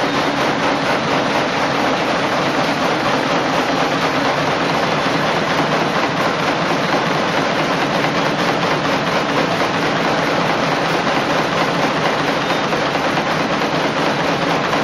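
Automatic wire nail making machine running at speed: a steady, rapid mechanical clatter from its striking dies.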